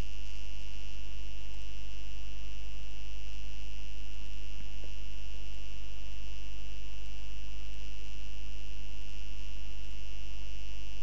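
Steady electrical hum and buzz from the recording setup: a strong low mains hum with a thin, steady high tone above it, unchanging throughout, with faint scattered ticks.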